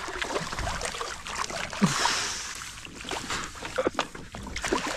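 Water splashing as a small European perch thrashes at the surface beside a kayak while it is netted, with a louder rush of splashing about two seconds in. Small knocks and clicks of gear against the kayak run through it.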